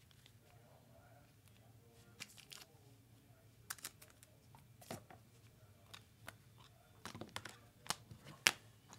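Faint handling noise of trading cards and packaging on a table: scattered light clicks and crinkles, a few sharper taps in the second half.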